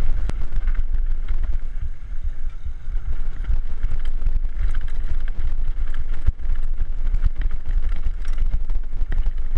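Wind buffeting the microphone with a low rumble, over the rattle and knocks of a mountain bike riding fast down a rough dirt trail.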